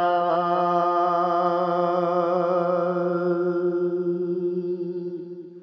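A man's voice holding the last long sung note of a Gojri bait, steady in pitch, fading out over the last second or so.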